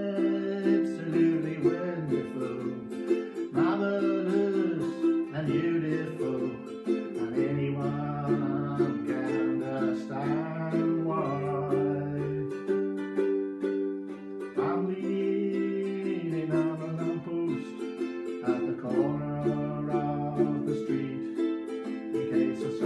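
Small ukulele-type string instrument strummed steadily, playing a song's chord accompaniment.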